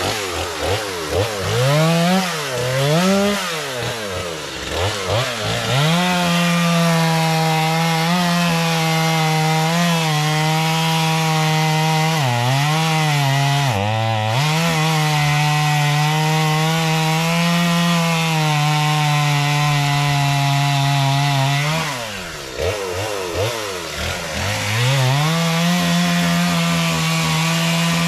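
Two-stroke chainsaw revving, then cutting steadily under load into a resin-soaked lighter-pine (fatwood) stump, its pitch sagging briefly a couple of times as the chain bogs in the wood. Near the end it eases off throttle, then comes back up to cutting speed.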